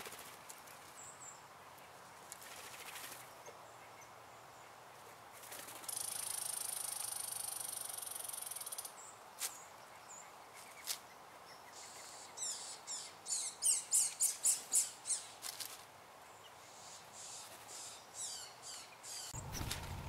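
American red squirrel scolding a gray squirrel: a drawn-out, hissing buzz, then a quick run of about a dozen sharp, harsh calls, about three a second, with a few more calls near the end.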